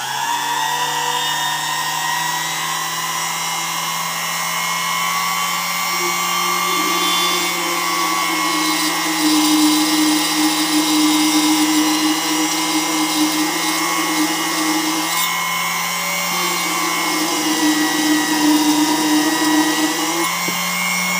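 Dumore high-speed sensitive drill press motor winding up to speed at the start, then running with a steady high whine. From about six seconds in, a lower wavering tone joins it as the tiny drill bit cuts into quarter-inch steel.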